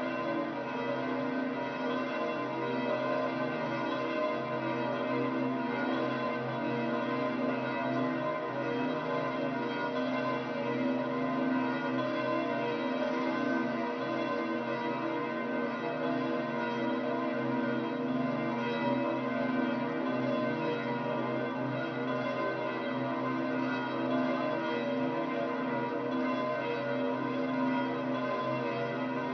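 The bells of St. Peter's Basilica ringing without a break, a dense wash of overlapping bell tones.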